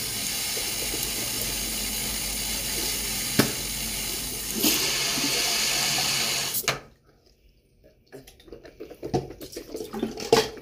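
Bathroom sink tap running in a steady stream, louder for about two seconds from around four and a half seconds in, then shut off abruptly about seven seconds in. A single sharp knock about three and a half seconds in, and a few faint small knocks after the water stops.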